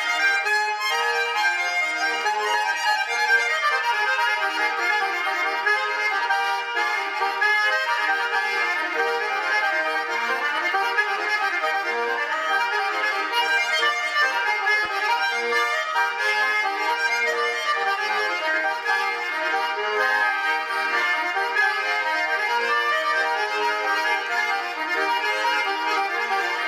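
Russian garmon (button accordion) playing a traditional village dance tune (naigrysh), with continuous chords and a quick melody of short notes and no pauses.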